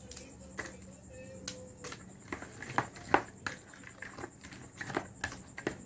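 A fork clicking and scraping against a plastic bowl while mashing avocado with crackers: irregular taps, a few a second, getting denser and louder about two seconds in.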